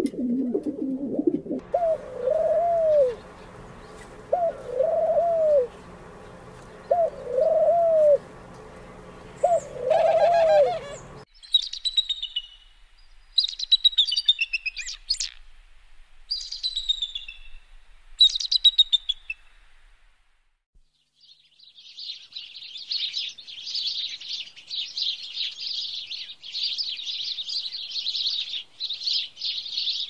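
Rock pigeon cooing, then a bird giving four arched calls about two seconds apart. About eleven seconds in, this cuts to a bald eagle's high, falling chirping calls. From about twenty-one seconds on, house sparrows chatter continuously.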